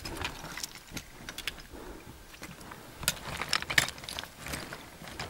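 Irregular clicks, clinks and scrapes of a climber's steps and gear while ascending a couloir, thickest in the second half.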